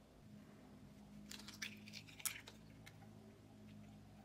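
An egg being cracked and its shell broken open over the mixer bowl: a short run of faint crackles with one sharp tap, between about one and a half and two and a half seconds in, over a low steady hum.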